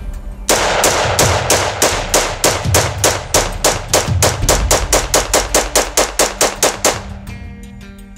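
AR-15 firing microwaved .223/5.56 rounds in a rapid semi-automatic string, about four to five shots a second, stopping about seven seconds in. Every round fires and cycles without a stoppage, showing the microwaved ammunition works.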